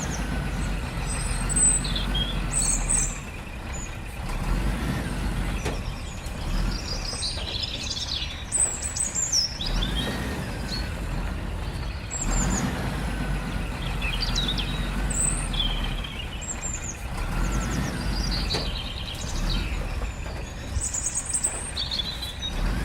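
A low, steady engine rumble with birds chirping over it in many short, high calls.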